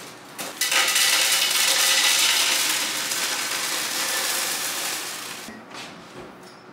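Kitchen faucet running into the sink, a steady splashing hiss that starts just under a second in and tapers off after about five seconds, with a few light knocks around it.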